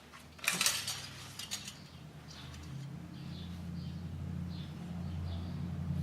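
Honda Civic Si four-cylinder engine just started and idling on fresh oil: a steady low hum with light metallic ticking, after a brief louder burst about half a second in.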